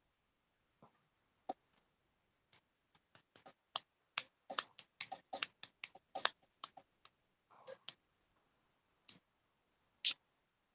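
A run of irregular sharp clicks, a couple dozen of them, thickest in the middle and ending with one louder click near the end.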